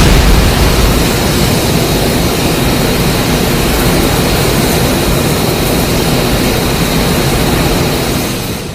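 Mechagodzilla sound effect from the 2021 MonsterVerse film: a steady jet-engine-like rush over a heavy low rumble, with a faint high whine held throughout. It fades out at the end.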